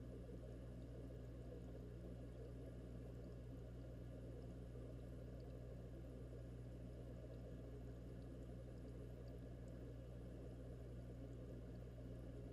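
Steady, muffled low hum and rush of an aquarium's aeration, air bubbling up in columns, heard underwater inside the tank.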